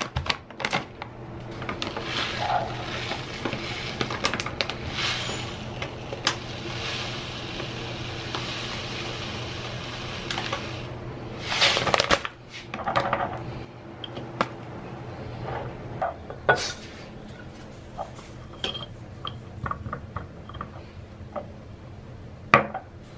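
Bath salts poured from a bag into a glass mason jar, a steady granular pour lasting about ten seconds, followed by scattered clinks and taps of glass jars being handled on a stone counter.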